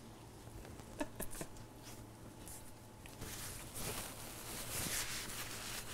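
A few soft chewing clicks about a second in, then a napkin rustling as it is rubbed over the face for about two seconds near the end.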